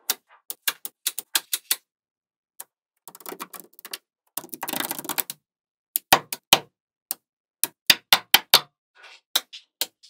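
Small magnetic balls clicking sharply as strips of them are snapped into place on a slab, first in a quick run of clicks, then a few seconds of dense rattling as the balls clatter together. After that come more loud single clicks.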